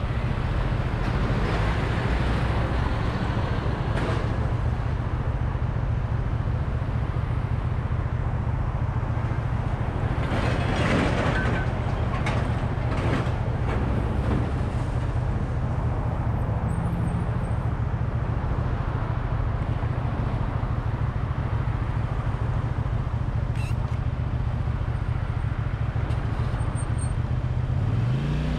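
1985 Honda VT250F Integra's 250 cc V-twin running steadily under way, with road and wind noise. About ten seconds in there is a louder rush of noise for a few seconds, and near the end the engine note rises briefly and drops back.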